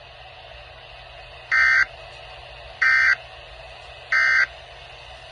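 Three short, buzzy electronic data bursts about 1.3 s apart, typical of the Emergency Alert System's end-of-message (EOM) tones that close an alert activation on a radio broadcast.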